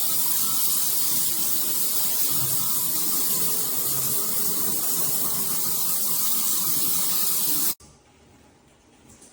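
Water spraying steadily from a shower head, cutting off abruptly near the end.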